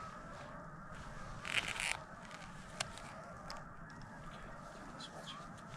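A flock of geese honking faintly and continuously, with a short rustle about one and a half seconds in.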